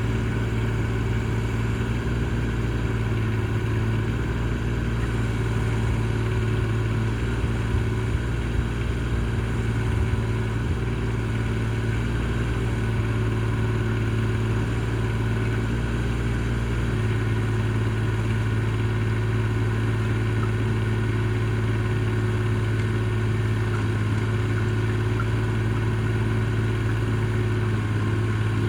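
Mini excavator's engine running at a steady speed, a steady drone whose low note shifts a little past halfway through and then holds.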